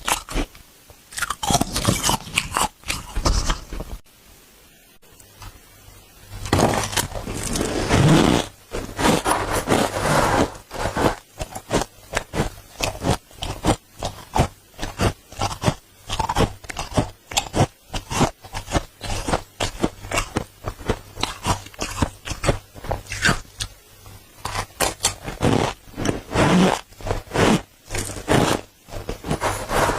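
Dry freezer frost being scraped with a spoon and crunched while eaten, a rapid run of squeaky, crunchy scrapes and bites, with a short lull about four seconds in.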